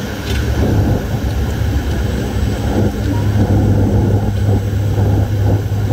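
Cabin noise of a De Havilland Canada Dash 8 Q400 turboprop in cruise, heard from inside near the propeller: a steady, loud low drone from the spinning propeller and engine, with a constant hum over rushing air noise.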